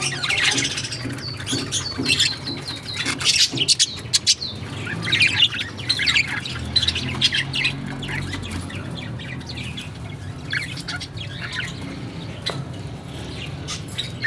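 A group of small birds chirping and squawking in quick, overlapping bursts, over a steady low hum.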